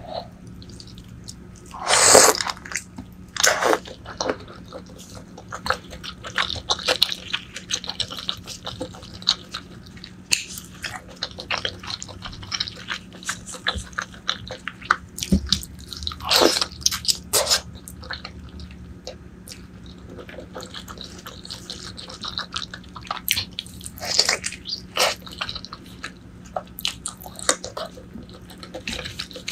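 Close-miked chewing and wet mouth sounds of someone eating braised pork leg: irregular smacks and squishes, with louder bites about two seconds in, in the middle and near the end.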